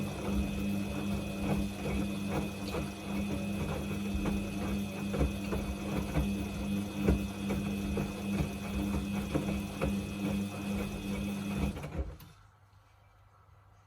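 Samsung washing machine running on its Quick 29 wash cycle: a steady low motor hum with irregular light knocks, which cuts off suddenly about twelve seconds in, leaving only a faint low hum.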